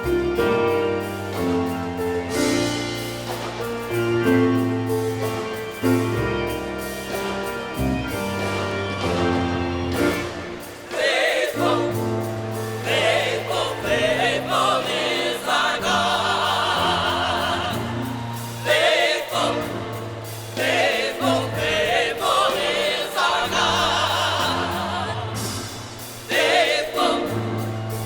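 Gospel choir performance: an instrumental introduction of held chords over a bass line, then the choir comes in singing about eleven seconds in, over the accompaniment.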